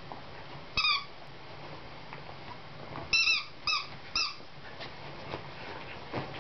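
Jack Russell Terrier giving short, high-pitched yips: one about a second in, then three in quick succession a few seconds later.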